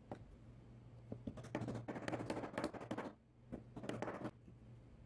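Rapid patter of small clicks and scrapes in two spells, the second shorter, as glue and walnut keys are worked into the mitred corner slots of a small wooden box.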